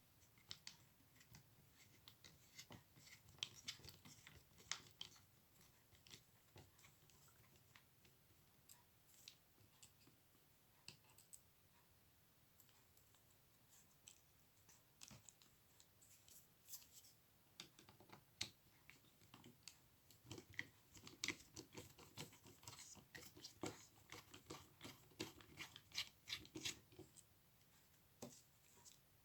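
Faint, scattered clicks and scratches of a small precision screwdriver working tiny screws out of a compact camera's lens assembly, coming more often in the second half.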